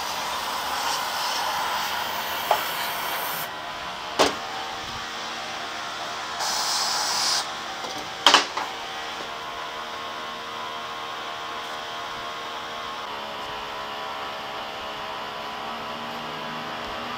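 Aerosol can sprayed through a straw nozzle: a steady hiss that stops about three and a half seconds in, then a second short spray of about a second. A few sharp clicks fall in between, over a steady hum.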